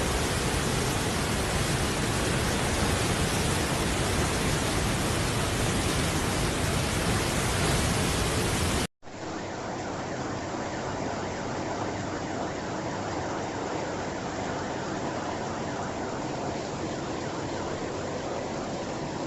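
Rushing floodwater: a steady, loud rush of water noise. About nine seconds in it cuts off abruptly to another recording of flowing water, quieter and duller.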